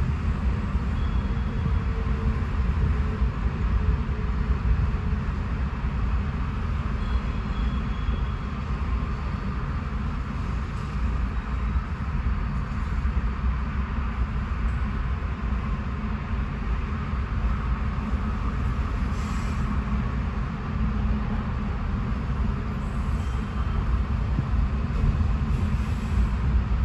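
Freight train's autorack cars rolling steadily past, a continuous low rumble of steel wheels on rail, heard from inside a car.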